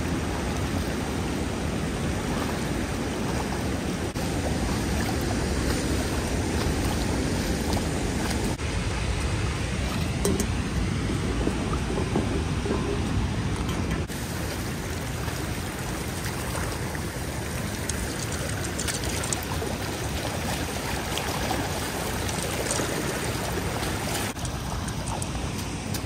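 Steady rush of fast, high water pouring over a dam spillway and running over rocks; the rush changes abruptly in tone a few times.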